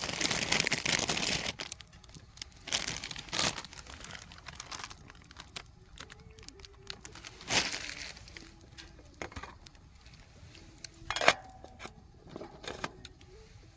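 Crinkling and rustling of something being handled, in irregular bursts, the longest in the first second and a half.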